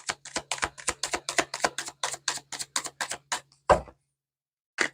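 Typewriter keys clacking in a steady run of about five strokes a second over a low hum, with one heavier thump near the end, a short pause, and the clacking starting again.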